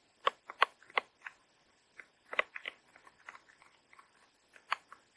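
A metal spoon scraping sauce out of a thin plastic food tray, giving sharp irregular clicks and short scrapes as the plastic flexes and the spoon knocks against it.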